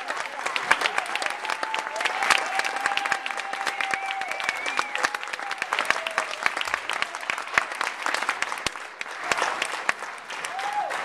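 Audience clapping steadily after an orchestra piece, with drawn-out cheers over the applause.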